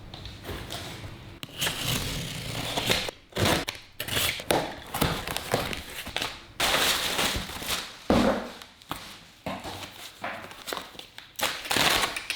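A cardboard parts box being opened and unpacked by hand: irregular rustling, crinkling and tearing of packaging, with a few knocks as things are handled.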